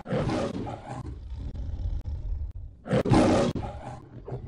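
A man roaring in imitation of the MGM lion: a long roar fading out, then a second loud roar about three seconds in and a shorter growl near the end.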